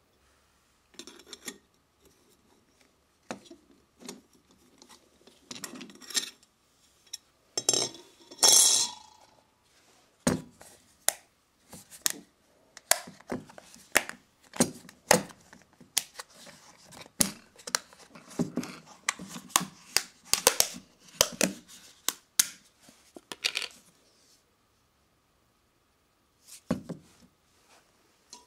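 Metal garbage-disposal mounting parts (sink flange and mounting rings) clinking and clacking as they are picked up, turned over and set down on a wooden floor: a long run of separate sharp knocks, loudest about eight seconds in, with one more short burst near the end.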